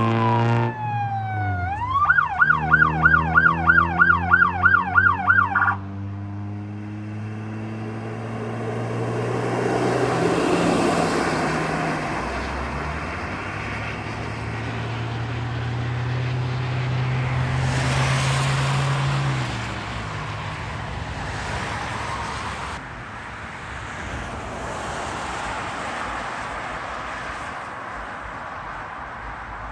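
Emergency vehicle siren: a wail winding down at the start, then rising into a fast yelp of about three cycles a second that cuts off suddenly about six seconds in. After that, vehicle engine and road noise run on, swelling twice.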